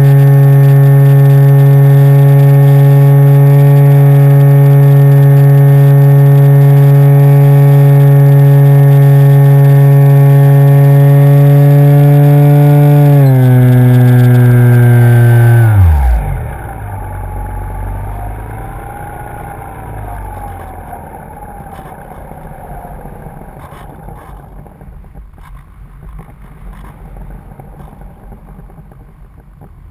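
Radio-controlled plane's motor and propeller, heard from on board, running at a steady high pitch. About thirteen seconds in the pitch steps down slightly, and about three seconds later the throttle is cut and the pitch falls away to nothing. The plane then glides with a faint rush of air and a faint wavering tone that fades out.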